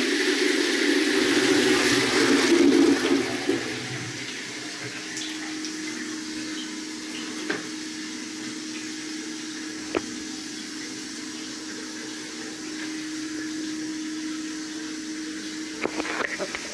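Water rushing loudly for the first three and a half seconds, then running on more quietly with a steady low hum, broken by a couple of small clicks.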